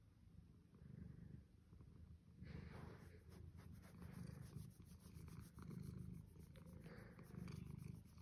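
Domestic cat purring while being stroked: a low purr that swells and fades about once a second with its breathing.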